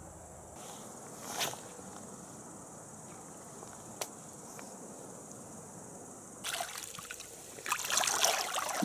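River water splashing and sloshing during the last couple of seconds as a hooked fish is brought to hand in the shallows. Before that, only faint steady insect chirring, with a soft swish and a single click.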